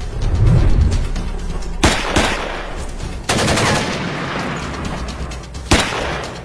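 Gunfire: two single shots about two seconds in, a rapid burst of automatic fire around the middle, and one more shot near the end, over background music.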